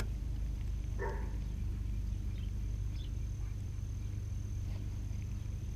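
A steady low rumble throughout, with a sharp click at the very start and one short animal call about a second in.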